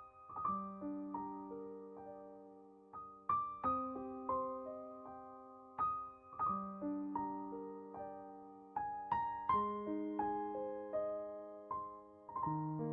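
Soft, slow piano background music: gentle chords and single notes struck about once a second and left to fade.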